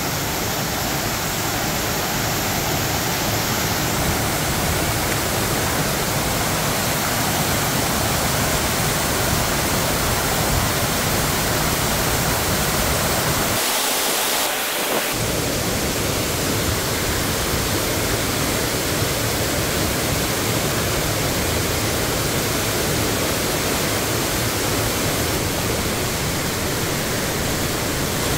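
A waterfall's steady rushing noise as it pours into a pool. About halfway through, the deep rumble drops out for a second.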